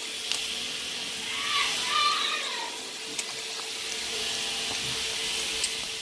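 Flour fritters frying in hot oil in a pot, a steady sizzle, with a few light clicks of metal tongs turning them.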